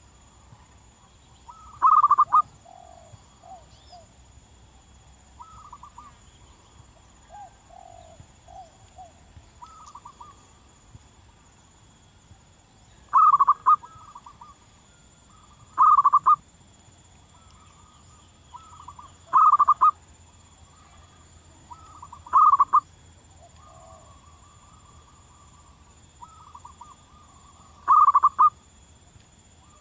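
Zebra doves (perkutut) cooing: six short, loud bursts of rapid staccato coos, a few seconds apart, with softer coo phrases in between.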